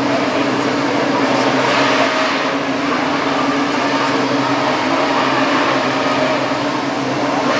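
Many Formula One cars' 2.4-litre V8 engines running together at high revs in a loud, continuous wall of engine sound, swelling briefly about two seconds in.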